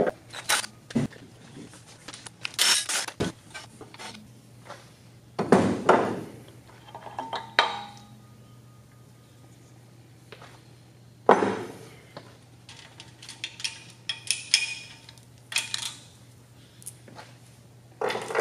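Metal engine parts of an LS3 V8 being handled during teardown: scattered clinks and rattles with several sharper knocks that ring briefly, the loudest about five and eleven seconds in, as the oil pump and windage tray are lifted off and set down.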